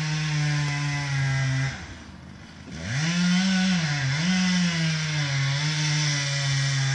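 Chainsaw cutting through the trunk of a large cottonwood tree while felling it. The engine runs steadily under load, falls off to a low idle for about a second near two seconds in, then revs back up, its pitch dipping briefly about a second later as it bites into the cut.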